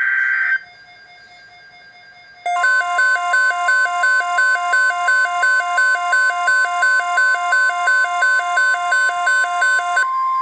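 NOAA Weather Radio alert signals: the tail of a digital SAME header data burst, then a warbling two-pitch electronic alarm pulsing about three times a second over the steady 1050 Hz warning alert tone. The alarm stops near the end and the 1050 Hz tone carries on alone, announcing a severe thunderstorm watch.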